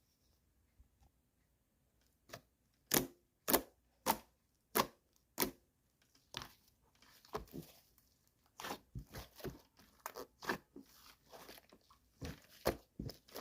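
Large purple slime being squeezed and pressed by hand, giving sharp pops as trapped air bursts: first about one every half second, then faster, irregular crackling pops.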